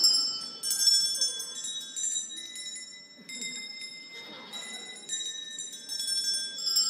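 Small bells chiming: a series of high notes struck one after another, each ringing on, with a new note every half second or so.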